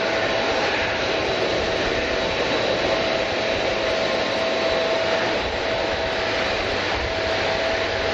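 Jet airliner engines running at the airport: a steady rushing noise with a thin, steady whine over it.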